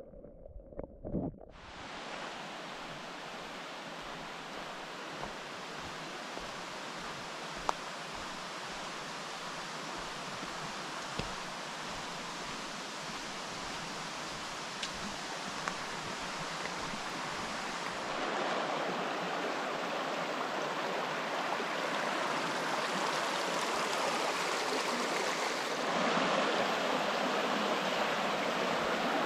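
Rushing mountain creek: a steady hiss of water running over rocks. It starts abruptly after a second and a half of a few muffled thumps, and it grows louder, stepping up about two-thirds of the way in and again near the end.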